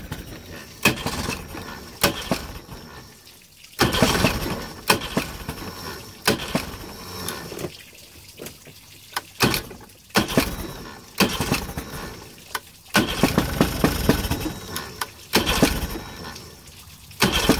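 1988 Mariner 40 hp two-cylinder two-stroke outboard cranking over in about seven short bursts of rapid pulses without catching. It is choked and fuel-primed, and is more finicky to start than usual after sitting for most of a year. Water from the hose on the flushing muffs runs steadily underneath.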